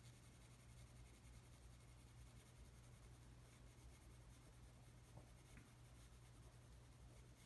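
Faint scratching of a coloured pencil shading on paper, over a low steady hum.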